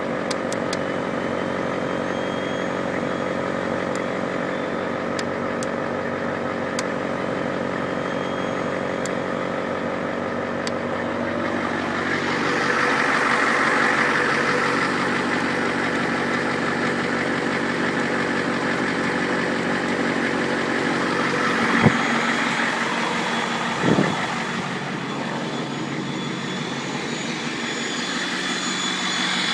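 Ford F350's 7.3L IDI V8 diesel running steadily, with a thin high whistle from its Holset turbo. It grows louder about twelve seconds in, and two short thumps come near the end.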